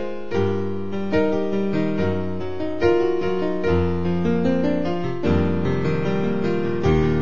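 Piano music accompanying the mime, a steady run of notes over a bass line.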